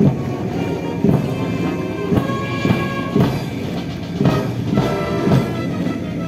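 Military march music played by a band of brass and drums, with a steady beat and held brass notes.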